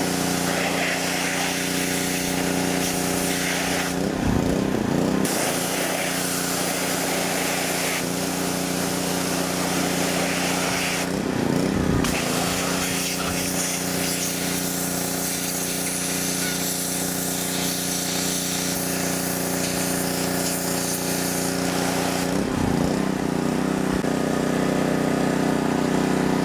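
Pressure washer running with a steady motor hum and the hiss of its high-pressure water jet blasting a flip phone. The spray breaks off briefly a few times, as the trigger is let go, then starts again.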